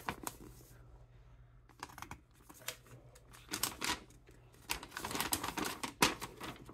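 Thin paper instruction leaflet being unfolded and handled, giving soft irregular rustles and crinkles. They are sparse at first and busier in the second half.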